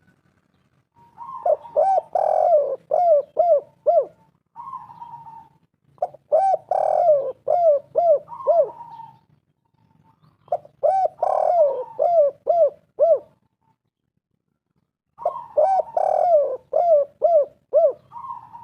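Spotted dove (tekukur) cooing its song over and over: four phrases, each a held opening note followed by a quick run of falling coos about three seconds long, with short pauses between them.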